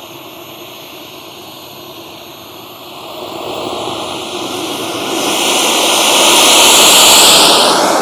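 KingTech K70 G4+ model jet turbine running at idle, then spooling up about three seconds in to a loud, high-pitched hiss and whine that peaks shortly before the end as the jet starts its roll down the runway.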